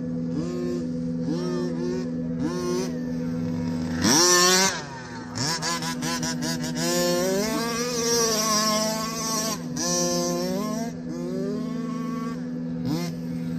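Losi DBXL's two-stroke gas engine breathing through an aftermarket tuned pipe, revved up and dropping back again and again, with one sharp high rev about four seconds in the loudest.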